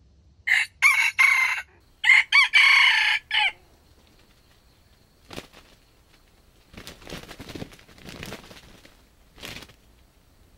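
Junglefowl rooster crowing twice in quick succession, short clipped crows with a rise and fall in pitch. Softer rustling in dry leaves follows later.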